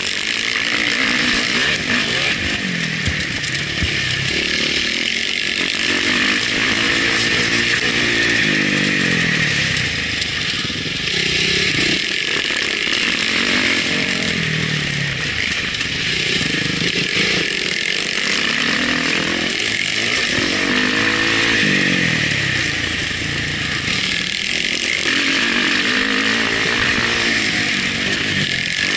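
Motocross dirt bike engine heard on board, revving up and dropping back over and over as the rider works the throttle and gears through the track, with a steady rush of wind and track noise over it.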